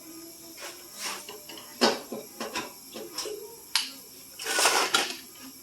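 Tools being handled: a string of short clinks and knocks, then a scraping sound lasting about half a second near the end.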